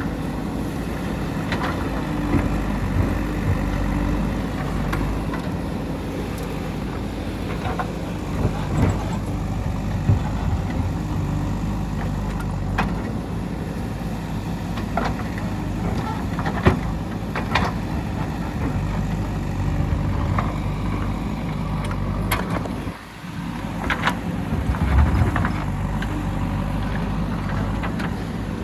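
JCB 3DX backhoe loader's diesel engine running steadily while the machine works, with scattered sharp knocks and clatter throughout. The engine sound drops away briefly about three-quarters of the way through, then returns.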